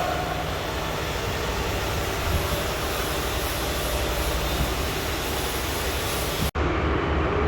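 Steady workshop background noise: a loud hiss over a low mechanical rumble. It drops out abruptly about six and a half seconds in, then carries on duller.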